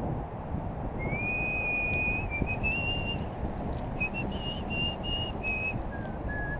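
A person whistling a slow tune: held notes stepping up and down in pitch, starting about a second in, with a short break in the middle. Under it runs a steady rumble of wind on the microphone.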